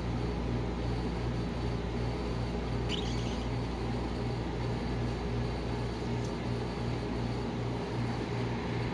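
Rolled ice cream machine's refrigeration unit running under the cold plate: a steady low hum with a throb about twice a second. A faint click comes about three seconds in as the cereal box is set straight on the plate.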